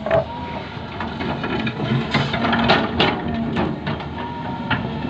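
Excavator running, its engine working steadily under several knocks and clanks, with a steady whine coming in near the end.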